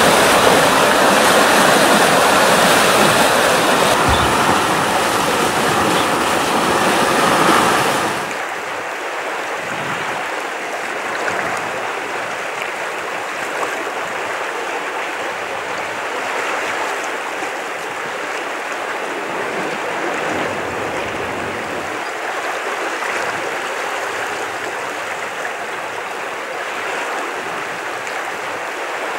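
Rushing floodwater: a loud, steady rush of fast-moving river water, which drops suddenly about eight seconds in to a quieter, duller, steady flow.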